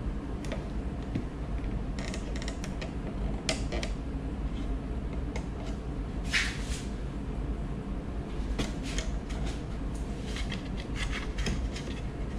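Light wooden knocks and clicks from wooden bar clamps and small wooden blocks being set against the braces of a guitar top. There are a few clusters of clicks and a brief louder rustle about six seconds in, over a steady low hum.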